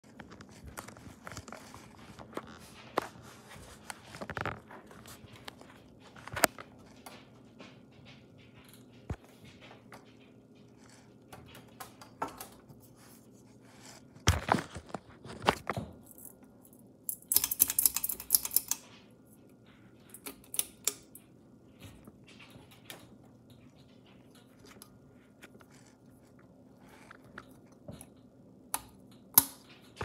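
Hands working an unwired Littleton ceiling fan: scattered clicks and knocks as its pull-chain switch is pulled, and a stretch of rattling from the metal bead chain about two-thirds through, over a faint steady hum.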